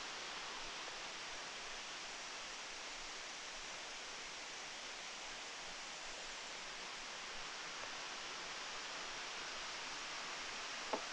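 Steady, even rush of small waterfalls spilling down a rock cliff into a pool, with one short click near the end.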